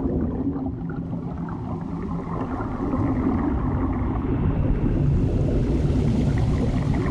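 Underwater ambience sound effect: a low, muffled water rumble that turns brighter and a little louder about five seconds in.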